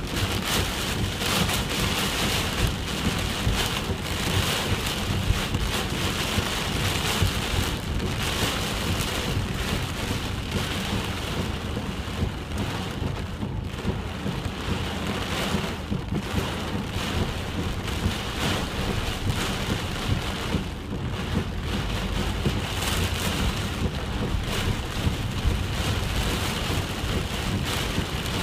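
Heavy typhoon rain falling steadily, with many close drops striking a surface and a steady low rumble underneath.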